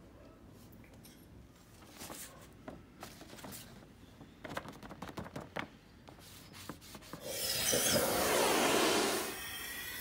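Scattered rubbing and clicking handling noises, then about two seconds of louder steady hiss, settling to a quieter hiss near the end.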